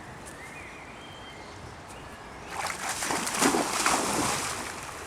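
Water splashing and sloshing for about two seconds in the middle, rising and then fading, over a steady rush of river water.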